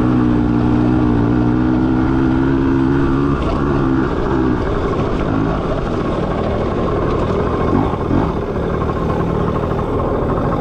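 Small dirt bike engine running under the rider. The engine note is steady for the first three seconds or so, then breaks up into a lower, rougher running sound.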